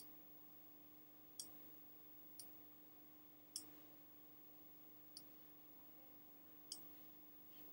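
Computer mouse buttons clicking, about six single sharp clicks at irregular intervals of roughly one to one and a half seconds, over a faint steady hum.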